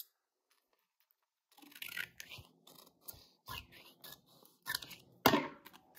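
Scissors cutting through a sheet of transfer tape and its paper backing: a run of short snips starting about a second and a half in, the loudest one near the end.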